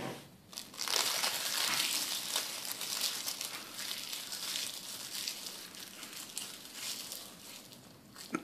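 A crisp sheet of dried seaweed (nori) crackling and crunching as a child bites and chews it. The crackle starts about a second in, is loudest over the next couple of seconds, then thins out.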